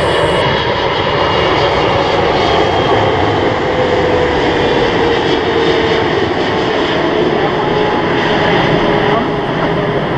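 Boeing 777-300ER's GE90 jet engines on landing approach: a loud, steady jet rush with a tone that slowly falls in pitch as the airliner comes in low to touch down.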